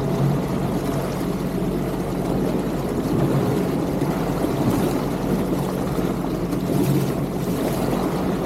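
Jet ski engine running steadily, with water noise.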